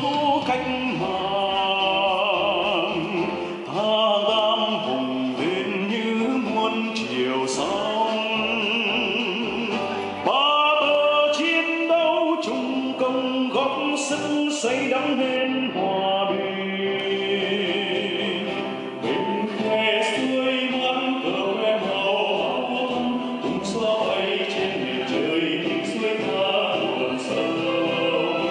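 Men singing a song on microphones, several voices together, with instrumental accompaniment, going on steadily.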